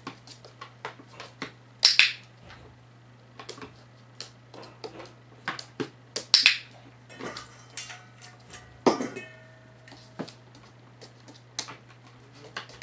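A run of sharp clicks and light taps as a Shetland sheepdog paws and steps on a small box and the wooden floor, with two much louder, crisp clicks about two and six and a half seconds in.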